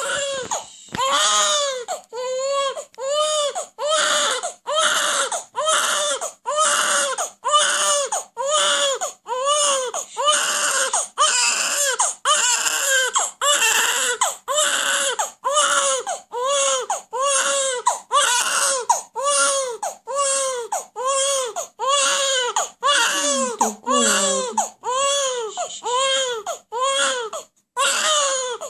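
Baby crying without letup in short, rapid wails, a little over one a second, each rising and falling in pitch, with one brief catch of breath near the end.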